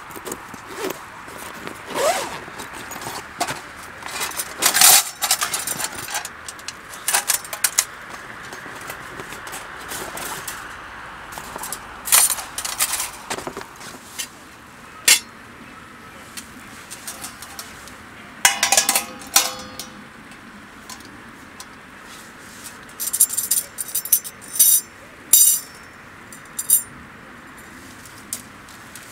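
Metal camping gear clinking and clattering as it is handled: a string of separate knocks and rattles, with one ringing metallic clank about two-thirds of the way through.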